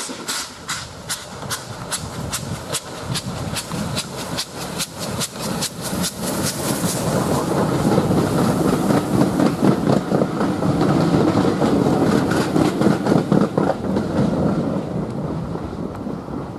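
LMS Black Five 4-6-0 steam locomotive working a passenger train, its chimney exhaust beating in a rapid, even rhythm, then the coaches rumbling past with the clickety-clack of wheels over the rail joints. The sound grows loudest as the coaches pass and fades near the end.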